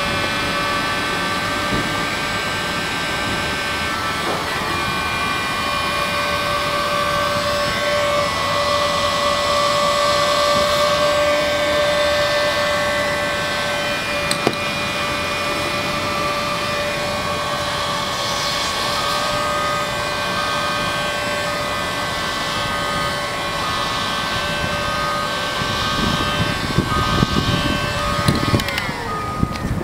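Steinel hot air gun running steadily: a fan-motor whine over the hiss of blowing air. A few knocks near the end, as the whine drops in pitch.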